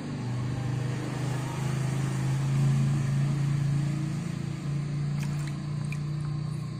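Steady low hum of a running motor, with a few light water splashes near the end.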